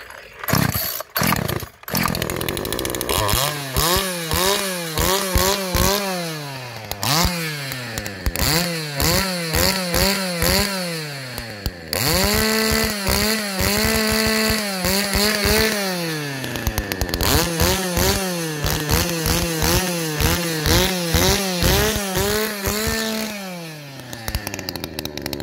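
Poulan Pro two-stroke chainsaw with a modified exhaust sputters a couple of times, then is revved repeatedly. Each time the engine climbs to a high steady pitch, holds for a second or more, and drops back toward idle, with one longer hold near the middle.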